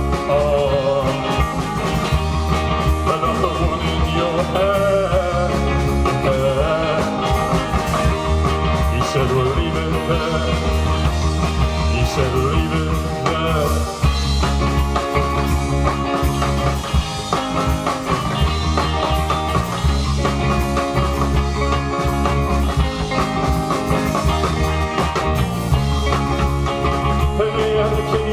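A rock band playing live: full-band music with a steady beat, in a stretch of the song without lyrics.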